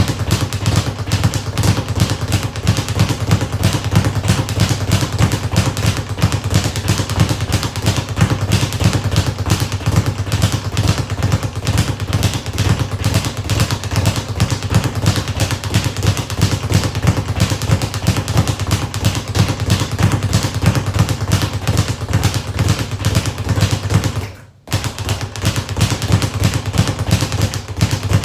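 Speed bag being punched in a fast, steady rhythm, the bag rattling rapidly against its round rebound platform. The rattle stops for a moment about three-quarters of the way through, then picks up again.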